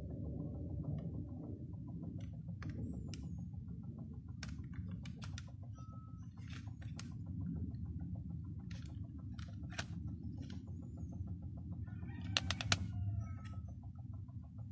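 Scattered clicks and crinkles of a CD jewel case and its plastic wrap being handled, with a sharper cluster of clicks about twelve seconds in, over a steady low rumble.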